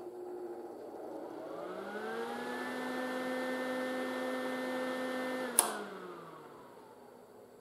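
Lincoln 180C MIG welder's cooling fan starting up: it is slow to get going, then its whine rises in pitch and holds steady. A click comes about five and a half seconds in, and the fan winds down. The hesitant start and bearing noise point to a fan the owner is confident is failing, with a worn sealed bearing.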